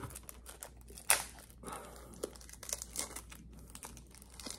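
Trading-card wrapper being torn open and crinkled by hand, in irregular crackles with one sharp, loud rip about a second in.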